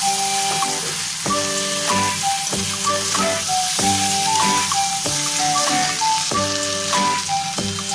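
Food sizzling as it fries in hot oil in a pan, under background music with a melody.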